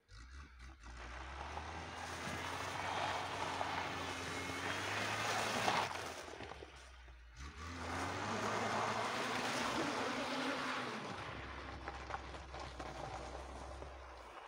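VAZ-2104 (Lada) four-cylinder engine revving hard as the car accelerates on icy snow with its rear wheels spinning and throwing snow, over a steady rushing noise. The engine rises in pitch twice, and there is a brief dip about halfway through.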